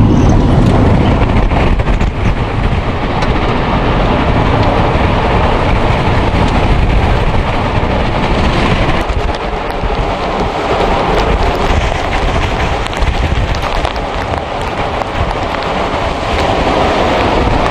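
Storm wind rushing over the microphone and rain striking the vehicle: a loud, steady rushing noise with a deep rumble, heaviest near the start.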